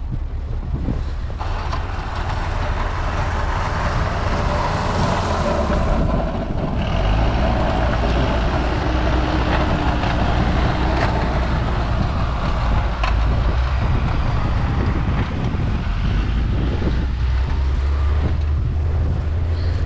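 Bus engine running as it pulls away: a steady low rumble that grows louder about six seconds in.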